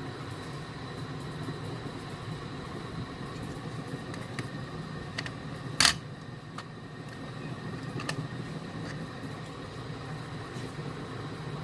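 Steady low background hum with a faint steady whine, broken by a few small clicks and one sharp, loud click about six seconds in, typical of diecast model boxes being handled.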